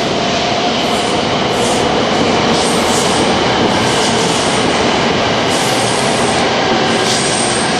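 Tokaido Shinkansen train running past the platform at speed: a loud, steady rush of wheels and air, with faint steady high tones above it.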